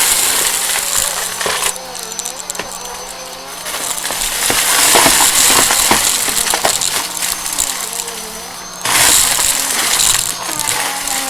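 Vacuum cleaner running while pushed quickly back and forth, its air rush swelling and falling back several times over a steady motor hum, with scattered clicks and rattles.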